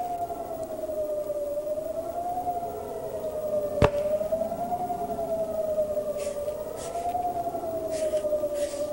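A wavering, siren-like tone that slowly rises and falls about every two and a half seconds. A single sharp click comes about four seconds in, and faint hissing bursts come near the end.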